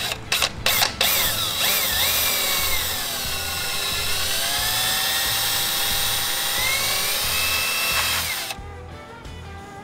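Cordless drill with a fine bit boring a pilot hole through fiberglass boat hull, run slowly: a few short trigger blips, then a steady motor whine for about seven seconds whose pitch sags in the middle and climbs again. It stops near the end, as the bit punches through the fiberglass.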